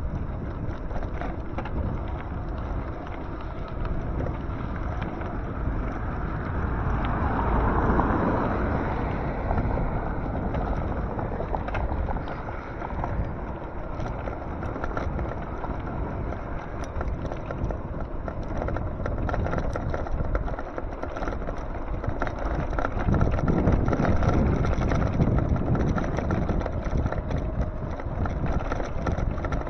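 Wind rushing over the microphone while riding an electric bike along a road, with road and traffic noise that swells twice, about a quarter of the way in and again about three-quarters through.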